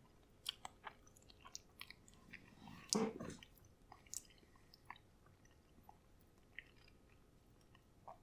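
A person quietly chewing a mouthful of microwaved spaghetti and meat sauce, with scattered small wet mouth clicks and one brief louder sound about three seconds in.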